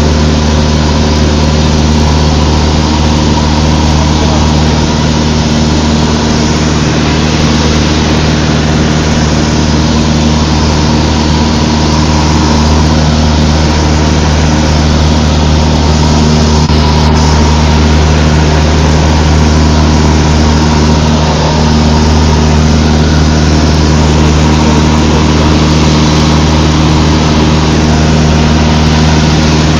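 Cessna 152's four-cylinder Lycoming O-235 engine and propeller running steadily at a constant power setting in flight, a loud even drone.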